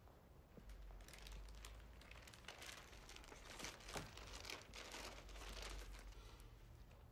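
Papers rustling and crinkling as they are handled and shuffled on a desk: a quiet, irregular run of soft crackles starting about a second in.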